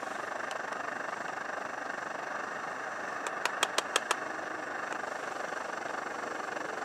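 A spoon stirring coffee in an insulated camp mug: a quick run of about six light clinks a little past the middle, over a steady low rushing background.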